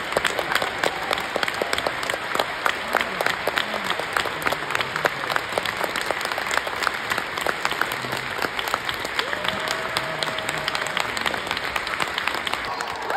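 Audience applauding steadily, a dense patter of many hands clapping, with a few faint voices calling out in the crowd.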